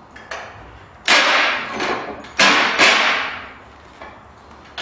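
Three loud, sharp knocks on metal, one about a second in and two close together near the middle, each dying away over most of a second, from work on the golf cart's rusted rear leaf-spring mounting bolt.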